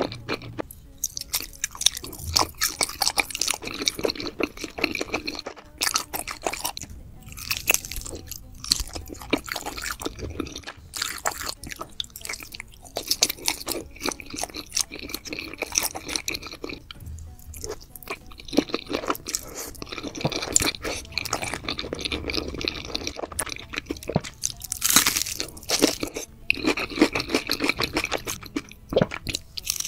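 Close-miked eating: chewing and crunching of black bean noodles, sausage and a fried hash brown, in runs broken by brief pauses.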